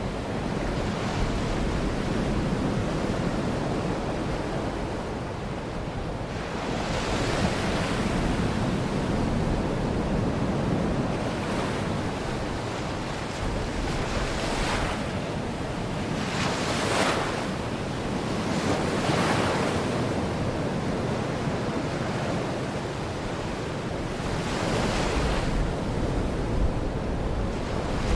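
Baltic Sea waves washing onto the shore: a steady surf that swells and recedes several times, the strongest wave about seventeen seconds in, with low wind rumble on the microphone.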